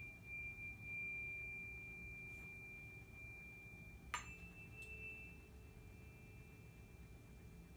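Tuning forks ringing: a clear, steady high tone rings on, then about four seconds in a fork is struck with a sharp tap and two close pitches ring together.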